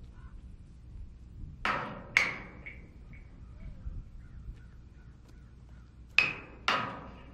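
Metal dumpster struck as a percussion instrument: two pairs of strikes, each pair about half a second apart, the second pair a few seconds after the first, each strike ringing briefly.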